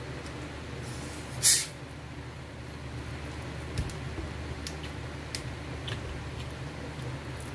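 Steady hum of an electric fan, with a short loud hiss about one and a half seconds in. Near four seconds a dull knock as a plastic soda bottle is set down on the table, then a few faint clicks.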